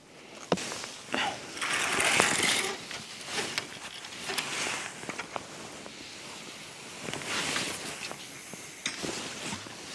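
Fishing tackle being handled: irregular clicks and taps, with longer stretches of rustling about two seconds in and again about seven seconds in.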